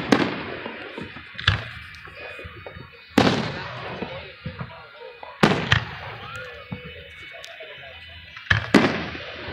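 Aerial firework shells bursting overhead: a series of sharp booms, about seven, some coming in quick pairs, each trailing off in a rumbling echo.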